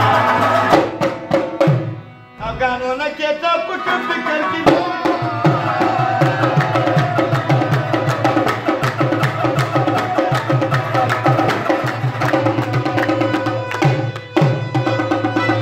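Live Afghan folk music: a harmonium holds the melody over a rubab, while tabla drums beat a steady, fast rhythm and hands clap along. The music drops out briefly about two seconds in, then resumes.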